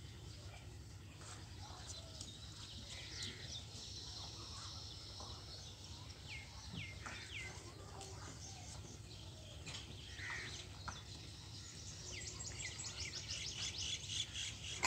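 Small birds chirping and twittering, with short downward-sliding calls and a fast trill near the end, over a steady low background hum.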